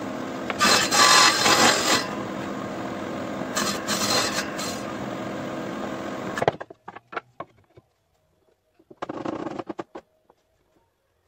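Homemade table saw running, its circular blade growing louder twice as it rips through wood strips, then cutting off about six and a half seconds in. Afterwards there are light knocks and a brief scrape as the cut wood pieces are handled on the saw table.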